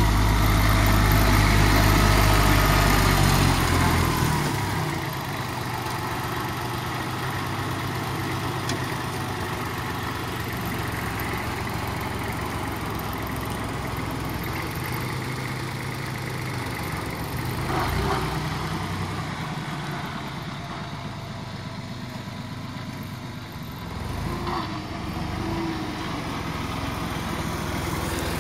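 Kubota GB200 compact tractor's diesel engine running steadily while it drives a rear-mounted PTO mulcher cutting tall green manure. It is loud and deep for the first few seconds, then settles to a steadier, lower running sound, with two brief louder spots later on.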